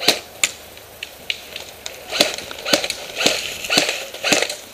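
Airsoft guns firing single shots: a series of sharp pops at uneven spacing, coming about every half second in the latter part.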